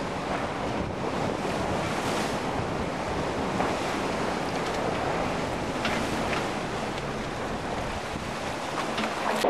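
Wind buffeting the microphone over the steady rush of sea water along the hull of a sailing yacht under way under sail.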